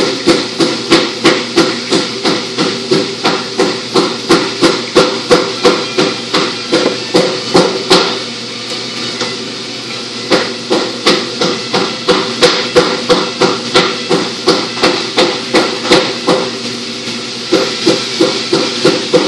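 A fast, even run of sharp hammer-like knocks, about two or three a second, over a steady low hum. The knocking stops for about two seconds near the middle and again briefly near the end.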